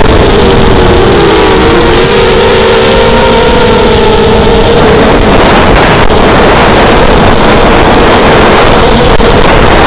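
Racing quadcopter's brushless motors and propellers whining loud and close, heard on board with heavy wind and propeller rush; the pitch dips and then climbs again a second or two in as the throttle changes.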